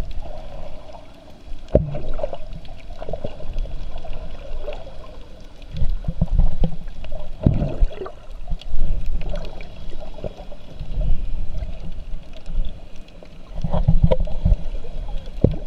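Underwater sound picked up through a waterproof camera housing: muffled water movement in uneven low rumbling surges, with scattered clicks and taps.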